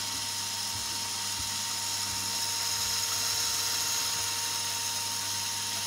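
Small electric motor of a Lego Technic model running steadily with a high whine through its gear train.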